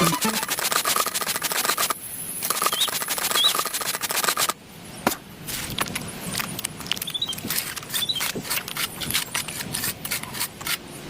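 Close-up scraping and rubbing with many small irregular ticks and taps, from working with miniature bricks and tools. The sound drops in level about halfway through and then goes on in quieter scrapes and clicks.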